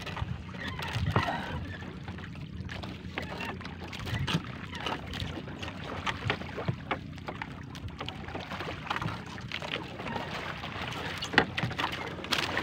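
A fishing net being hauled by hand over the bow of a small wooden outrigger boat, with frequent short knocks and clatter against the hull and water sloshing below, over a steady rush of wind and sea.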